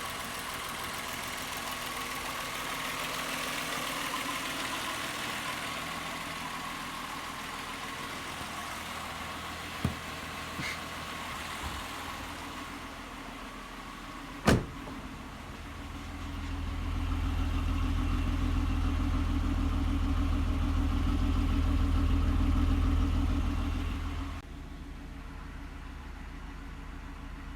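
2001 VW Jetta's 12-valve VR6 engine running with a fresh spark plug fitted, steady at first. A single sharp click comes about halfway through, then a much louder low drone lasts about eight seconds and cuts off abruptly.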